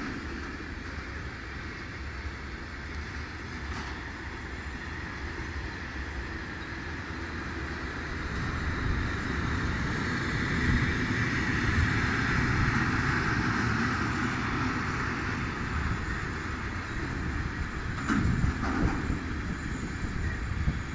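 Freight train of tank wagons rolling past: the steady rumble and rail noise of the wagons' wheels, growing louder in the middle, with a few sharp knocks near the end.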